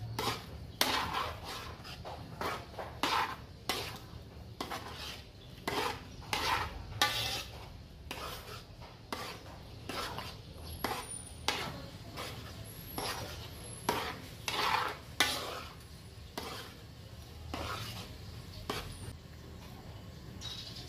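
A spoon stirring and scraping thick tomato sauce around a large aluminium wok, in short, irregular strokes about one or two a second that thin out near the end.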